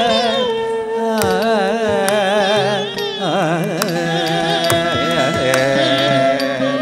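Carnatic music for Bharatanatyam dance: a melody line with fast wavering, ornamented notes over steadily held notes, marked by sharp percussion strokes.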